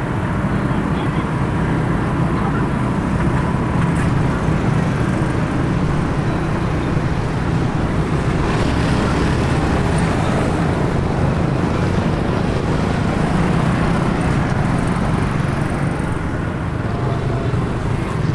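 Steady road traffic noise from a busy city street, with vehicles running past continuously.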